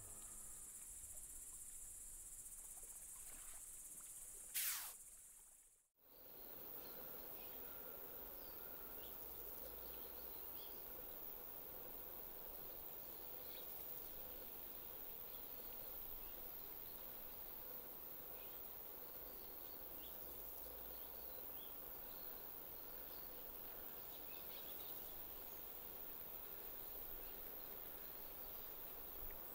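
Faint outdoor lakeside ambience: a steady hiss with scattered small insect chirps and high peeps. About four seconds in there is a short swoosh, and the sound cuts out for a moment just after.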